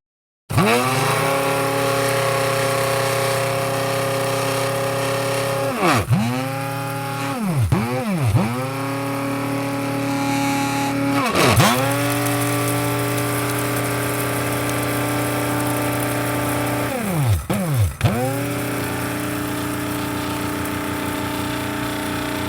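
Electric coffee grinder motor running at a steady whine. It spins up from silence and is let off and switched on again several times, each time dropping in pitch and quickly climbing back up, with a quick double stop-start near the middle.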